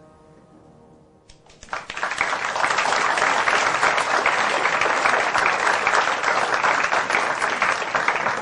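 The last held chord of the song's accompaniment dies away. About a second and a half in, a theatre audience breaks into loud, sustained applause.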